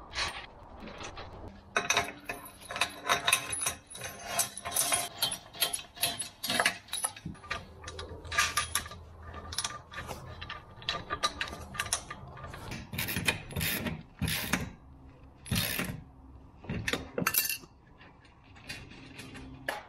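Ratchet wrench clicking in irregular runs as a nut is tightened on the bolt that fastens the lift's steel cable.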